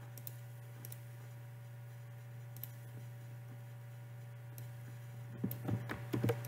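Quiet room tone with a steady low hum, broken by a few soft clicks from a computer's mouse and keys, most of them bunched together near the end.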